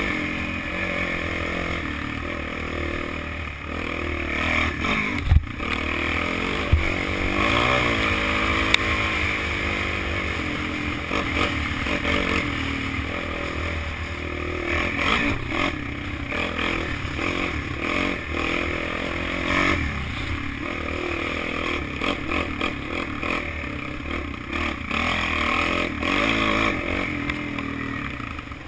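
Kawasaki KFX 400 quad's single-cylinder four-stroke engine revving up and down as it is ridden over a rutted dirt track, heard from a camera on the machine or rider, with wind rushing over the microphone. A few sharp knocks stand out between about five and nine seconds in.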